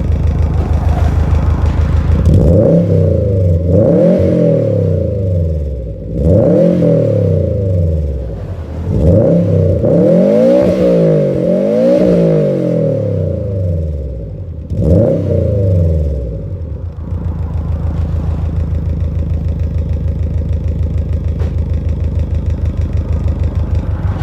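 Subaru Impreza GC8's flat-four engine through a GP Sports EXAS EVO Tune muffler with the silencer removed, idling and then revved in a series of throttle blips, each rising and falling, before settling back to a steady idle about two-thirds of the way through.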